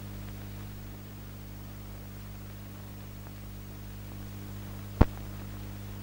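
Steady low hum with faint hiss from an old film soundtrack, with one sharp click about five seconds in.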